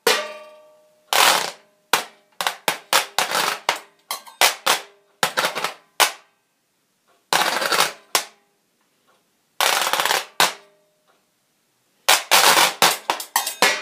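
Homemade washboard played in irregular rhythmic bursts: sharp taps and clicks mixed with dense rasping strokes about a second long, some strikes leaving a short ring. The playing pauses briefly twice.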